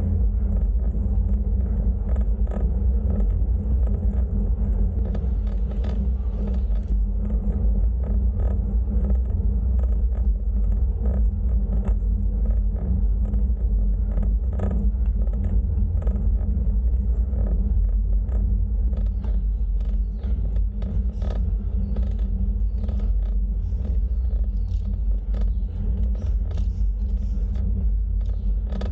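Steady low rumble of wind and road noise from a bicycle ride, with many small clicks and rattles scattered through it.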